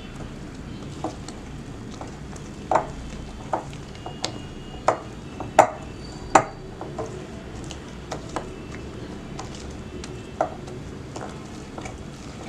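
Egg-biscuit batter being stirred in a mixing bowl, the utensil knocking against the bowl in irregular sharp clicks, loudest around the middle.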